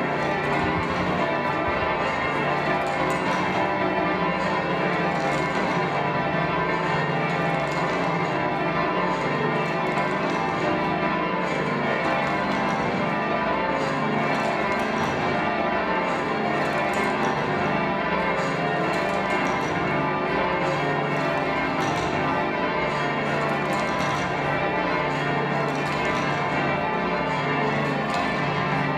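Bath Abbey's church bells rung in changes by a team pulling the ropes: a continuous, evenly paced run of overlapping bell strikes, each bell ringing on into the next.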